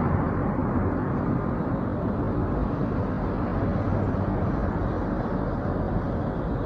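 Steady low rumble of outdoor street noise, with vehicle sound and no distinct events.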